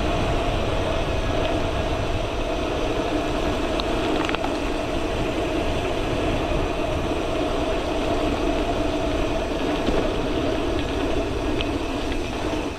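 Gravel bike rolling steadily along a lane and gravel track: tyre rumble and wind noise on the handlebar-mounted camera, with a steady hum throughout and a few faint ticks.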